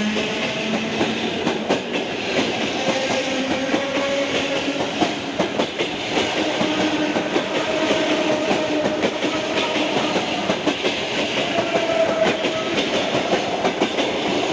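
ED4M electric multiple unit accelerating: its traction motors whine, rising in pitch, over a steady rapid clatter of wheels on rail joints.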